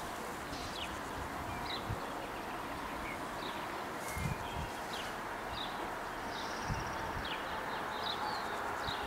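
Small birds chirping in short, quick calls over a steady outdoor background hiss, with a couple of brief low thumps of wind on the microphone.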